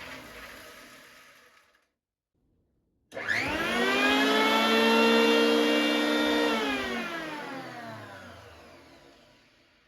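RYOBI HL-6A jointer's electric motor and cutterhead coasting down to a stop, then switched on again about three seconds in. It spins up with a rising whine, runs steadily for about three seconds, and after switch-off winds down with a falling pitch.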